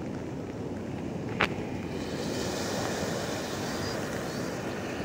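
Ocean surf breaking and washing up a sandy beach, with wind buffeting the microphone. A single brief sharp sound stands out about a second and a half in.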